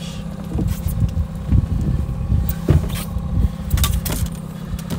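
Boat outboard motor running steadily, with wind buffeting the microphone and a few sharp knocks and clicks of gear on the boat.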